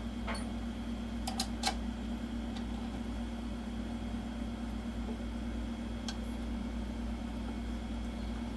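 Steady low hum, with a few light clicks in the first two seconds and one more about six seconds in, from a monitor plate's bolt and washer being fitted and tightened with an Allen key.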